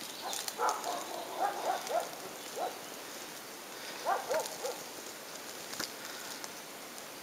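A dog barking in two runs of quick short barks, the second run about four seconds in, with faint crackling of dry leaf litter.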